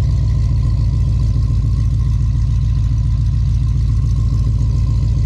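Pontiac G8 GT's 6.0-litre V8 idling steadily, cold, through a 3-inch exhaust with headers and three mufflers: a deep, not too loud idle.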